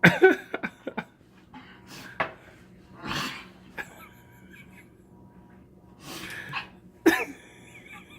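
A man coughing hard in fits: a loud cluster of coughs at the start, then single coughs spread through. They come from the burn of an extreme hot sauce caught in the back of his throat, which brings up a piece of food.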